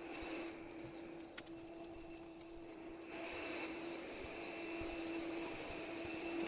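Vacuum cleaner running with a steady hum, its noise growing louder about three seconds in.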